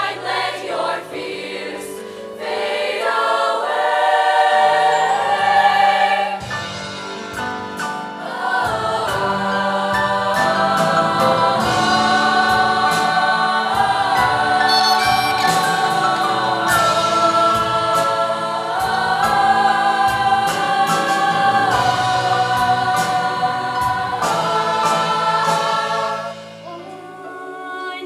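Choir singing in harmony with a live band; drum hits come in about six seconds in, and the music drops to a softer passage near the end.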